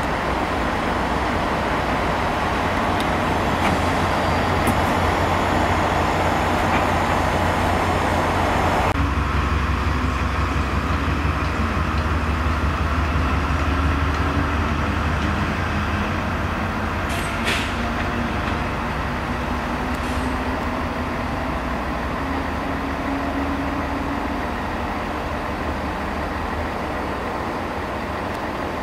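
Class 70 diesel-electric locomotive passing and moving away, its engine giving a steady low rumble, louder in the first third. A few sharp metallic clicks or squeals from the wheels on the pointwork come about two thirds of the way in.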